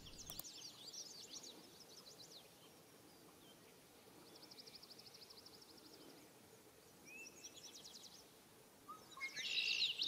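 Several songbirds singing faintly: quick downward-sweeping notes at first, an even rapid trill in the middle, and a louder song near the end from a red-winged blackbird.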